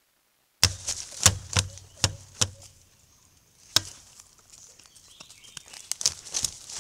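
Dhole moving right against the camera trap, making sharp, irregular crunching taps in dry leaf litter, each with a dull thud. The taps start about half a second in, come about four times a second at first, pause, then resume near the end.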